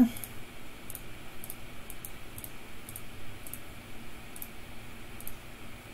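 Faint, irregular clicks of a computer keyboard being used, about two a second.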